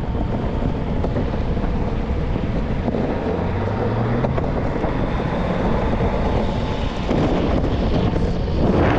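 Steady rush of wind on the microphone and rolling rumble while riding an electric skateboard, with a faint low hum that rises slightly in pitch about three and a half seconds in.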